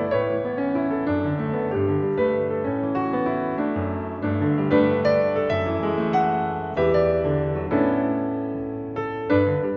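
Solo jazz piano: chords struck and held over sustained bass notes, a new chord or melody note every second or so.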